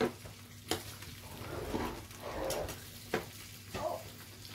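Metal tongs clicking and tapping on a tabletop grill pan several times, with soft sizzling of food cooking in between.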